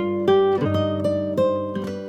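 Background music: acoustic guitar picking notes at a steady pace over a low bass.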